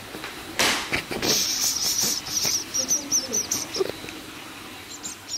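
A quick run of short, high chirps from a small calling animal, several a second, starting about a second in. Cloth rustles just before them.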